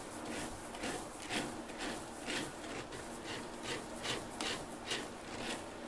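A cat digging in granular cat litter in a litter box: a run of short rasping scrapes, about two a second.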